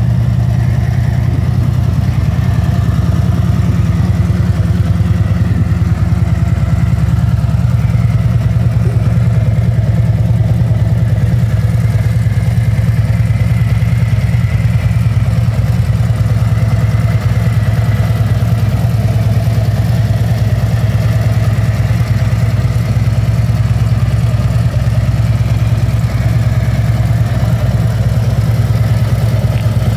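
Harley-Davidson Street Glide SP's 1868 cc Milwaukee-Eight 114 V-twin engine idling steadily.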